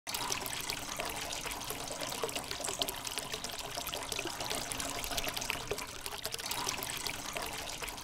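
Water from a small cement tabletop fountain pouring in a thin sheet into its shallow basin: a steady splashing trickle with many small spatters.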